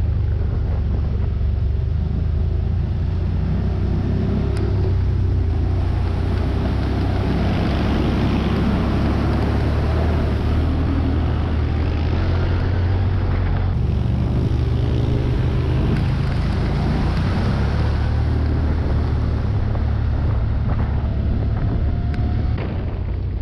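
CFMOTO side-by-side's engine running steadily while driving along a trail, with a steady rush of wind and tyre noise over it. The engine pitch briefly rises and falls a few times as the throttle changes.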